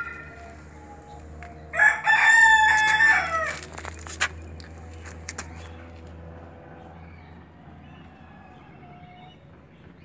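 A rooster crows once: a single drawn-out call of about two seconds that drops in pitch at the end. A sharp click follows just after, over a steady low hum.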